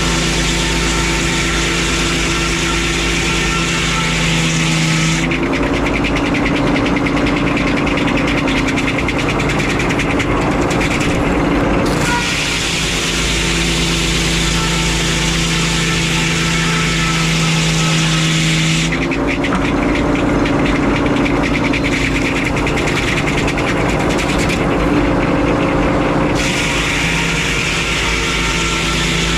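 Frick 01-C circular sawmill running steadily under its engine, sawing pine. The sound alternates twice between a harsher stretch full of hiss and a stretch of about seven seconds where the hiss drops and the engine note shifts, a repeating cycle of about thirteen seconds.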